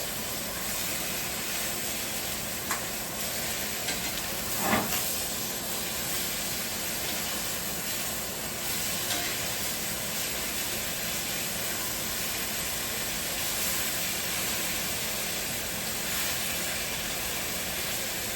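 Ribeye steaks searing in a hot cast iron skillet, a steady sizzle. Two brief clicks or knocks come about 3 and 5 seconds in.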